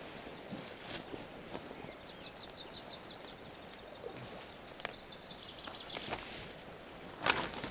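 A bird sings a fast trill of high notes about two seconds in, over a steady outdoor hiss. A few light rustles are followed by a louder, short rustle near the end as the camper moves in the tent doorway.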